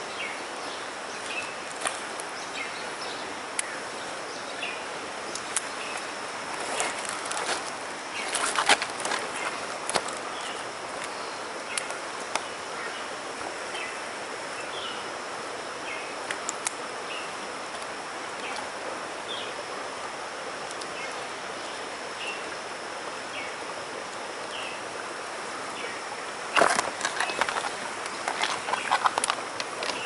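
Steady rush of a small forest stream, with short high chirps scattered throughout. Twice, about eight seconds in and again near the end, there is a quick run of clicks and splashes.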